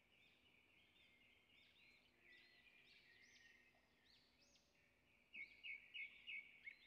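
Faint chirping and twittering of small birds in the background, otherwise near silence. Near the end comes a quick run of about six louder short chirps.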